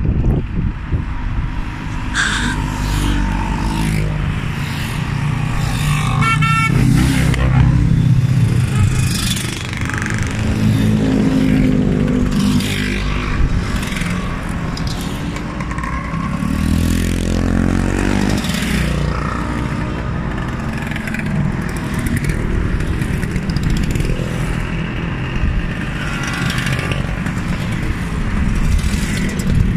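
A procession of motor scooters and motorcycles riding past one after another, their engines rising and falling in pitch as each goes by.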